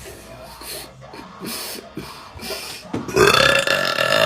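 A woman's long, loud belch that starts about three seconds in, after a few short soft breaths, and is held on one steady pitch.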